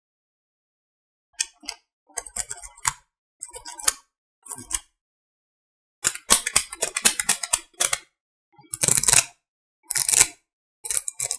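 A string of short, sharp clicking and rattling sounds in about eight separate bursts, with dead silence between them.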